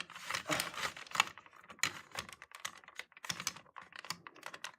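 A rapid, irregular run of light clicks and taps, with no alarm sounding.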